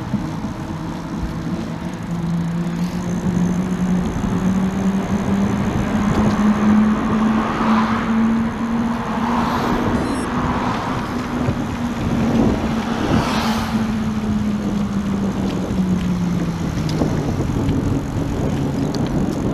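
Road traffic heard from a moving bicycle: several cars pass one after another, the loudest about thirteen seconds in, over a steady low hum that rises slightly in pitch and then falls away near the end.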